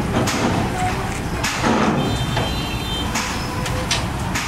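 Kato mobile crane's diesel engine running steadily under load as it hoists an overturned dump-truck body, with several sharp metallic knocks along the way.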